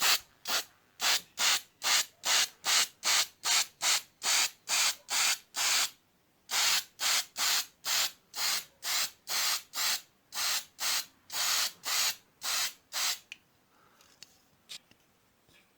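Aerosol spray-paint can sprayed in a long run of short, even hissing bursts, about two to three a second, with a brief pause about six seconds in. The bursts stop near the end, leaving a few faint clicks.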